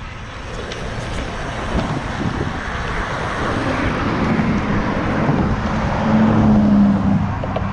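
Road traffic noise with a motor vehicle coming up and passing close, its engine hum and tyre noise swelling to loudest about six to seven seconds in, then easing.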